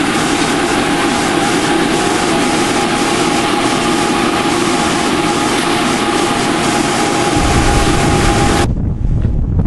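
Workshop machinery running: a loud, unvarying hiss with a constant whine. It cuts off abruptly near the end and gives way to wind buffeting the microphone.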